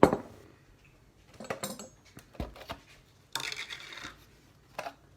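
Cutlery and dishware clinking and knocking: a few separate sharp knocks, the loudest right at the start, with a short rushing noise about three and a half seconds in.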